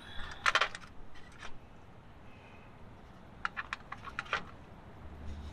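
Light metallic clinks of steel sockets and hand tools being handled while a larger socket is picked for a swing-arm airbag bolt: a small cluster about half a second in and a looser run of clinks around three to four seconds in.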